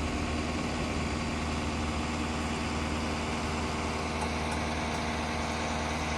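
A heavy vehicle engine running steadily at an even pitch, with a low hum.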